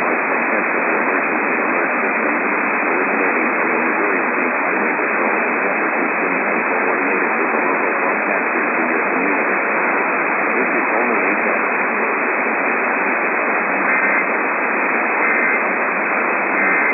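Loud, steady radio static from a weak off-air signal, confined to a narrow receiver audio band. Near the end, three faint short bursts of two-tone data come through the hiss about a second and a half apart: the start of an EAS header.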